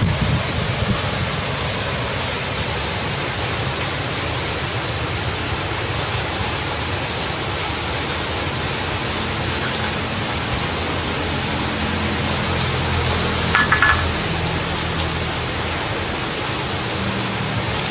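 Heavy rain falling steadily, an even hiss, with a short higher-pitched sound about three-quarters of the way through.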